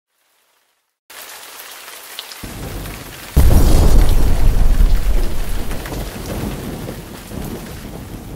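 Steady hiss of heavy rain. A low thunder rumble builds from about two and a half seconds in, and a loud thunderclap breaks about a second later and rolls on, slowly fading.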